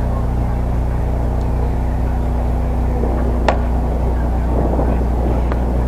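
Steady low rumble of outdoor ballfield ambience, with one sharp crack about three and a half seconds in.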